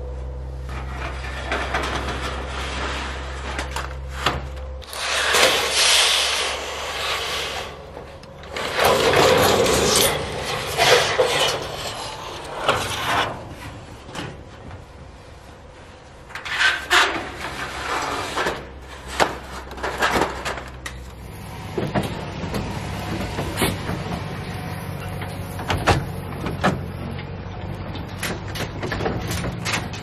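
Corrugated metal roofing sheets dragged and slid across a flatbed trailer: several long scraping, rattling bursts, then sharper clanks and knocks, over a low steady hum.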